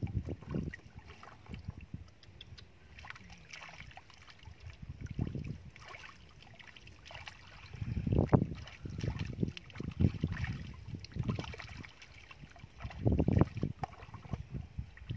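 Hands splashing and sloshing in shallow muddy water while groping for fish, in irregular bursts, loudest about eight seconds in and again near the end.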